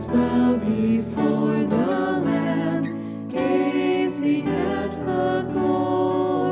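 Hymn music playing, a slow melodic passage with sustained notes changing every half second or so, between sung verses of the hymn.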